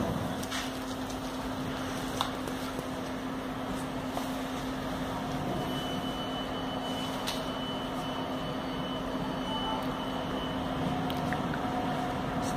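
Tyne and Wear Metro train rumbling faintly as it draws away down the tunnel. Over it runs the steady low hum of an underground station. A faint high whine comes in for a few seconds in the middle, and there are a few sharp clicks.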